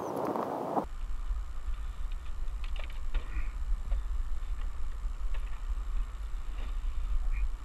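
Wind buffeting the microphone as a steady low rumble, with faint scattered clicks and rustles of a rope being handled among tree branches. A louder rushing noise cuts off abruptly just under a second in.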